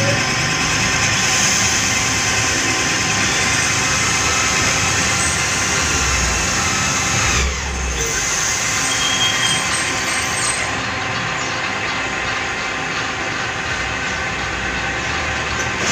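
Metal lathe running steadily while machining an engine cylinder head: a continuous whirring hum with a layer of steady whine, which falters briefly about seven and a half seconds in.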